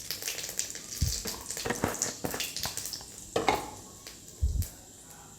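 Panch phoron and cumin seeds crackling and spitting in hot oil in a kadai, with dense pops for the first few seconds that then thin out. A couple of dull knocks are heard, about a second in and near the end.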